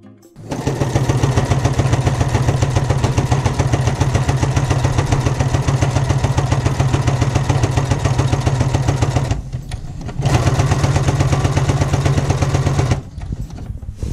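Electric sewing machine stitching through cotton fabric at a fast, steady speed. It stops for under a second about nine and a half seconds in, then runs again and goes quieter in the last second.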